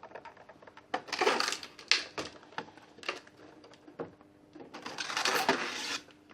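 Small plastic toy figures and accessories being handled in their plastic packaging: rustling and clattering, with two longer rustling bursts about a second in and near the end, and scattered clicks in between.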